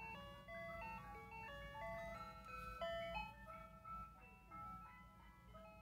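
Toy ice cream truck's electronic jingle: a simple tune of single, quickly stepping chime-like notes.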